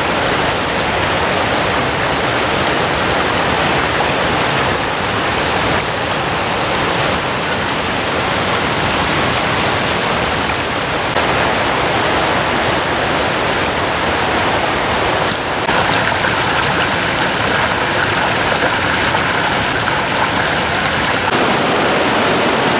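Water rushing and splashing over the rocks of a small mountain forest stream, a steady loud hiss. About a second before the end it changes to the heavier rush of a full-flowing, turbulent mountain river in spate.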